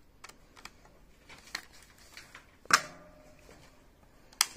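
Small clicks, then a louder metallic clack with a brief ring about two-thirds of the way through and a sharp click near the end, from the side-lever action and magazine of a PCP air rifle being worked by hand.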